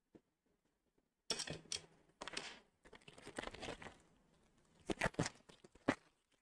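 Handling noise of a wired clip-on microphone being picked up and fitted to clothing: irregular rustling and scraping, with a few sharp knocks near the end.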